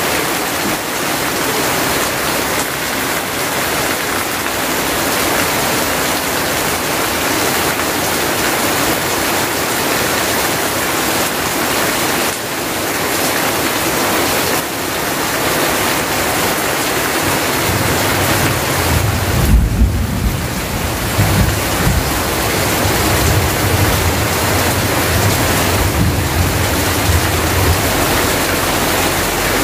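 Heavy rain falling steadily on trees, ground and roofing, with runoff pouring off a roof edge. About two-thirds of the way in, a low rumble comes in and carries on to the end.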